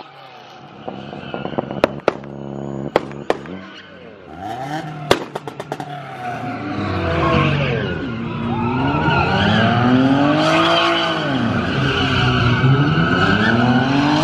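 A car's engine revving up and down again and again under a hissing tyre squeal as the car spins its wheels in a smoky burnout. A few sharp pops sound in the first few seconds, before the revving builds.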